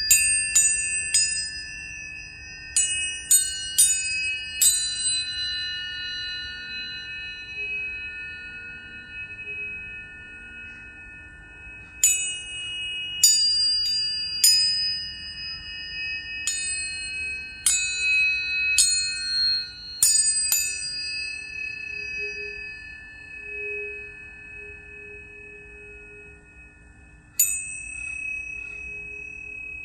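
Tuning forks struck one after another, each strike a bright clang that settles into a steady ringing tone. Forks of several pitches ring together, struck in quick runs near the start and again in the middle, with a last single strike near the end.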